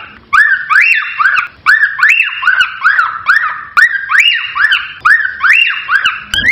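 Cockatiel whistling a fast, repetitive song of rising-and-falling notes, several a second.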